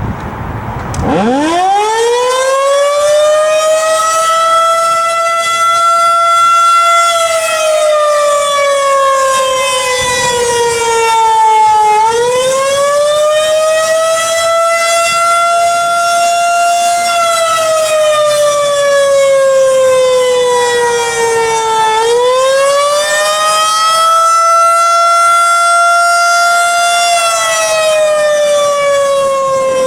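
Federal Signal 2001-130 electromechanical outdoor warning siren starting up about a second in, its pitch climbing steeply from a low growl to a loud wail. It then sounds the attack signal, a wavering tone that slowly rises, holds and falls back about every ten seconds.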